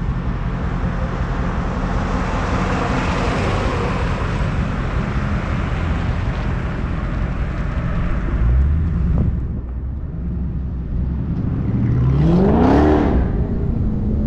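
Dodge Charger SRT 392's 6.4-litre HEMI V8 idling with a low rumble, then revving up once and dropping back about twelve seconds in as the car pulls away through a turn. A steady rushing noise runs over the first half.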